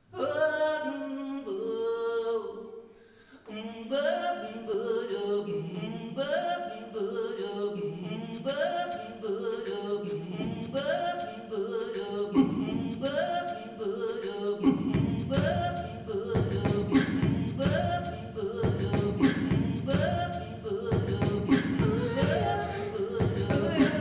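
A man's singing voice live-looped: a short sung phrase repeats in a steady cycle while further vocal layers are stacked on top. Beatboxed percussion clicks join about 8 seconds in, and deeper vocal layers fill in the low end around 10 and 15 seconds.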